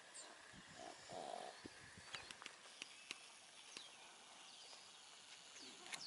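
Near silence, broken by scattered light clicks, a few brief high falling chirps, and a short faint mid-pitched hum about a second in.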